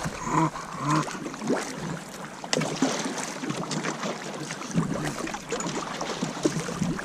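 Kayak in shallow river water: splashing with scattered small knocks and scrapes, and wind on the microphone.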